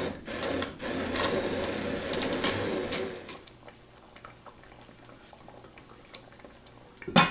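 Immersion hand blender running in a pan of curry sauce, pureeing the tomato-and-onion masala, for about three seconds and then switched off. A single sharp knock near the end.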